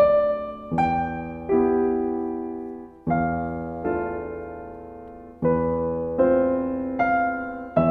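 Background piano music: a slow, gentle melody of notes and chords struck about once a second, each left to ring and fade.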